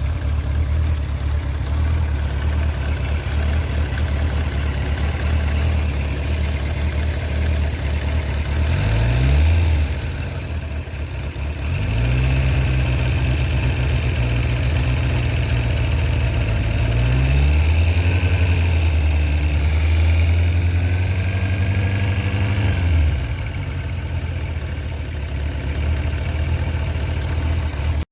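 Kawasaki ZZR1100's inline-four engine idling, then revved and held at raised speed through the middle before dropping back to idle near the end, with a rattle that comes from camshaft holder bolts working loose in worn aluminium threads of the cylinder head.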